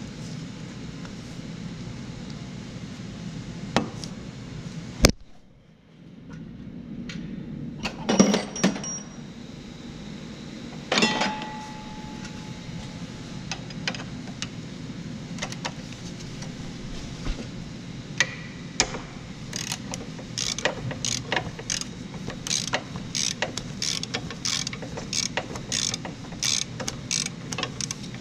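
Hand ratchet wrench on a bolt under the car, its pawl clicking: scattered clicks and a few louder metal clanks in the first half, then a quick, even run of clicks through the last third as the bolt is turned out. A steady low hum runs beneath.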